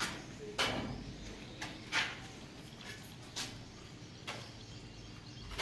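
A steel putty knife scraping and tapping on a granite slab edge: a few short scrapes and clicks, roughly a second apart, over a low background hum.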